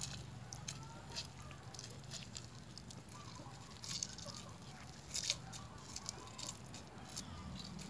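Lime halves squeezed by hand over a clay mortar of pounded chillies: faint wet squishes and scattered small clicks and ticks as the juice is pressed out.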